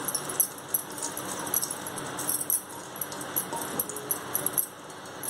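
Moong dal being tipped and scraped from a metal bowl into an aluminium pressure cooker, with many irregular light clinks of metal on metal and bangles jingling.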